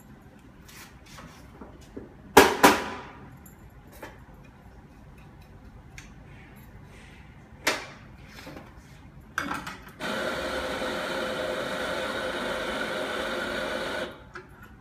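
Electric espresso grinder motor running steadily for about four seconds near the end, grinding coffee into a portafilter. Earlier, two loud sharp knocks close together, then a few lighter clacks and clicks of barista equipment.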